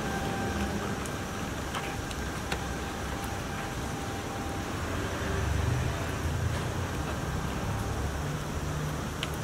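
Steady outdoor urban background of road traffic: a low rumble of passing vehicles under an even hiss, with a few faint clicks.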